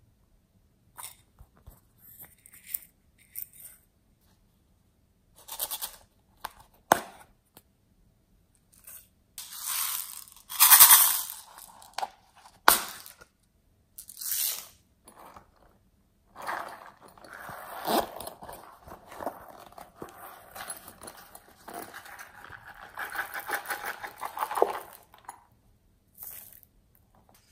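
Small plastic beads, sequins and glitter being poured and sprinkled onto slime in a glass dish: scattered taps and rustles of plastic containers, a loud rustling scrape about ten seconds in, then a long rattling patter of falling beads.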